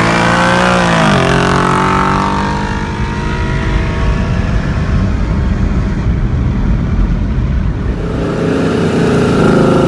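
Car engines at hard acceleration during a highway roll race, heard from inside a car's cabin alongside a twin-turbo 5.0 Mustang GT. An engine note drops sharply about a second in as the throttle comes off, then a loud rush of engine and wind noise, with a steadier engine tone near the end.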